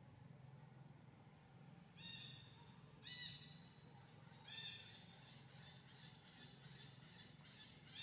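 Long-tailed macaque giving short, high-pitched squeaky calls: three about a second apart, then another near the end.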